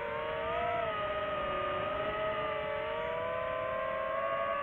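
FPV quadcopter's motors and propellers whining in flight: several close tones that shift in pitch with the throttle, dipping slightly midway and rising again.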